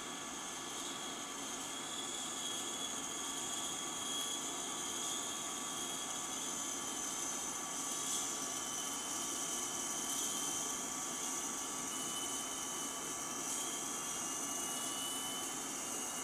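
Miniature rate gyro from a Tornado pitch/yaw rate gyro unit, its 400 Hz AC motor running. It makes a steady high whine of several tones over a hiss, one tone wavering slightly.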